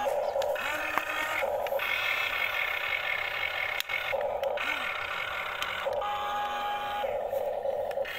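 Electric motors of an XCMG remote-control model excavator whining as the boom, arm and bucket move. The whine starts, stops and changes pitch every second or so as different motions begin and end.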